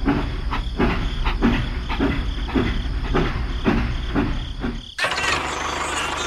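A small motor running with a rhythmic knock about twice a second. The sound cuts off abruptly about five seconds in, and a different noisy sound takes over.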